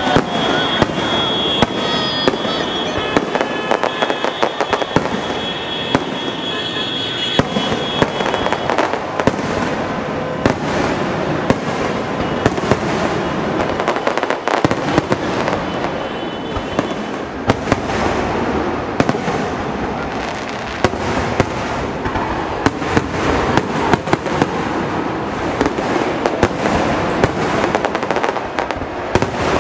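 Aerial fireworks display: a continuous, irregular barrage of bangs and crackles from bursting shells, several a second throughout. A steady high tone sounds along with them for roughly the first eight seconds.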